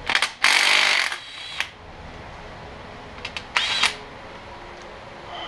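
Cordless impact wrench loosening bolts on the rear plate of a tractor engine: a few quick taps and then a long burst of hammering about half a second in, and a second, shorter burst with a high motor whine at about three and a half seconds.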